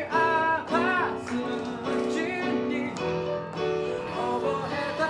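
Background music: a song with a singing voice over sustained keyboard chords.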